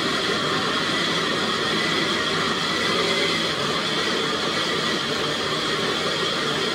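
Countertop blender running steadily at one speed, puréeing the ingredients for an enchilada sauce.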